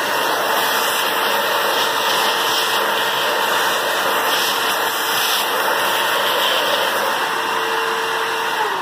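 Shop vac running steadily with a whine, vacuuming plastic milling chips off a model locomotive shell; the whine starts to drop in pitch at the very end as it is switched off.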